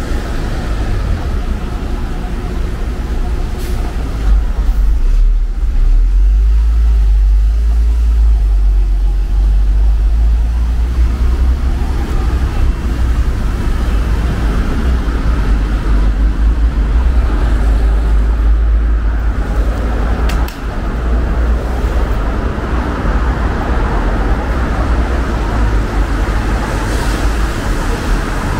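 City street traffic on a wet road: a steady low engine rumble from large vehicles close by, with cars passing and tyres hissing on the wet surface.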